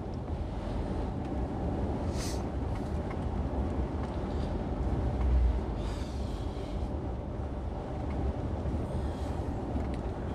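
Steady drone of a 410-horsepower lorry's engine and tyres on a wet road, heard from inside the cab, with a few brief higher hisses.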